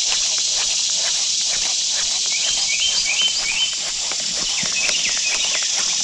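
Steady high-pitched insect chorus from the creekside trees, with a short run of about five quick rising chirps a few seconds in and scattered light clicks.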